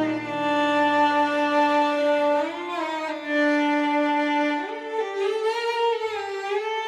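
Music: the song's instrumental outro, a violin playing slow, held notes with vibrato. The low backing drops out about three seconds in.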